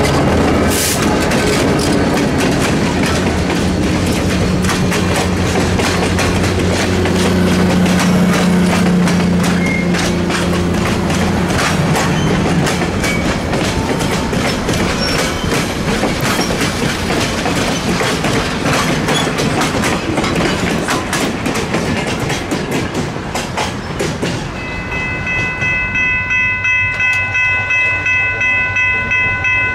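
An EMD SD45 diesel locomotive passes close by, its 20-cylinder 645 engine running with a low drone, followed by passenger cars whose wheels click steadily over the rail joints. About 25 seconds in, after a cut, a railroad crossing bell rings with a rapid, even pulse.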